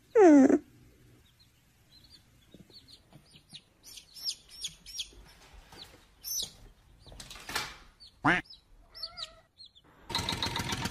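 A puppy's short, loud falling whine, then a run of quick high chirps and squeaks and a louder cry about eight seconds in. A harsh buzzing noise starts about ten seconds in.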